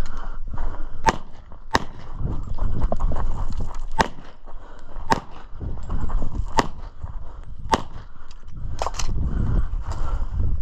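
Competition pistol fired one shot at a time at uneven spacing, about eight sharp cracks, with longer gaps where the shooter moves between positions and a low rumble of movement between shots.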